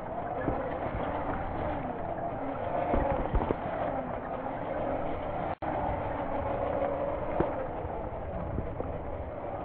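Electric motor and drivetrain of a Traxxas TRX-4 scale RC crawler whining, its pitch rising and falling with the throttle, with a few light knocks as it crawls over rough ground. The sound drops out for an instant about halfway through.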